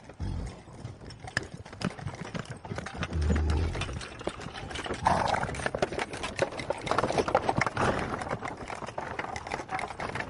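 A horse's hooves clopping in irregular knocks, with a low thud near the start and another a few seconds in.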